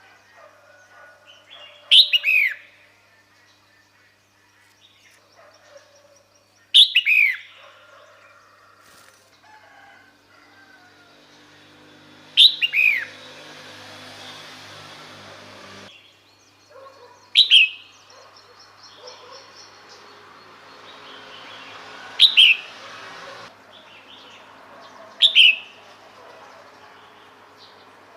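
Female red-whiskered bulbul calling: six short, sharp notes a few seconds apart, each falling quickly in pitch. This is the call used to draw males in.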